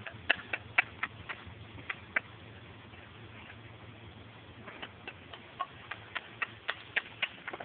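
Light, sharp clicks and taps in irregular clusters, a quieter gap in the middle, over a low steady hum.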